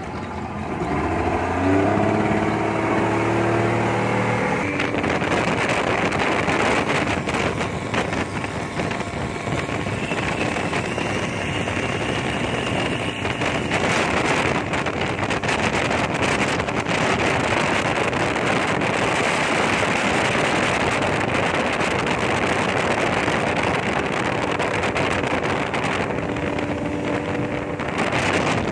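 A 60 hp speedboat engine speeding up, its pitch rising over the first few seconds, then running at speed under a heavy rush of wind and water, heard from aboard the boat.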